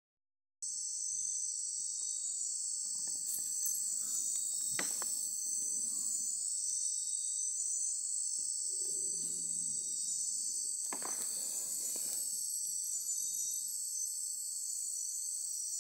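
Night insect chorus of crickets: a steady, dense high-pitched trilling, with a couple of faint knocks beneath it.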